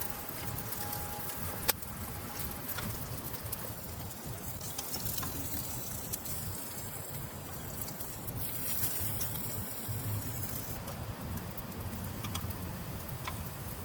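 Steady rain pattering, with one sharp click just under two seconds in.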